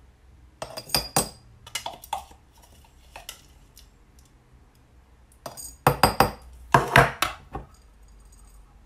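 A metal spoon clinking and scraping as a ground seed-and-nut mixture is tapped out of a clear cup into a glass jar, with glass clinks. A run of louder knocks and clinks about six to seven and a half seconds in.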